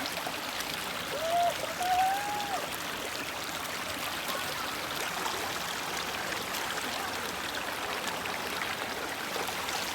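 Mountain stream flowing steadily over rocks, an even rushing of water.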